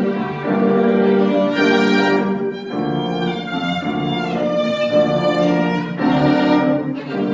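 Violin playing a melody of sustained notes with vibrato, moving from note to note about once a second.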